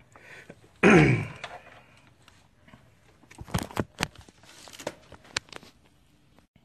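A man's short throaty vocal sound, falling in pitch, about a second in, then scattered clicks and knocks of tools or equipment being handled, with a few sharp taps in the middle.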